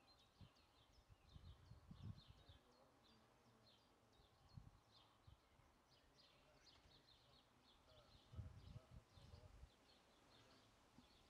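Near silence with faint, distant small songbirds chirping throughout, and a few soft low rumbles.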